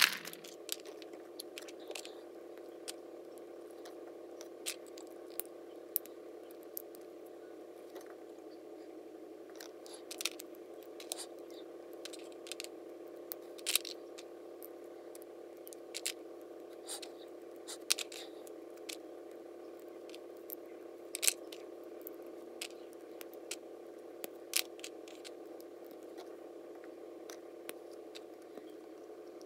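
Small Lego plastic pieces clicking as they are snapped together and set down by hand, a scattering of short, sharp clicks at irregular intervals over a steady background hum.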